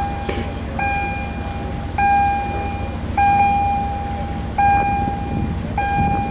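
Warning signal on a Panama Canal electric towing locomotive (a canal "mule"): a high, long beep that repeats about every second and a bit, over a low mechanical rumble.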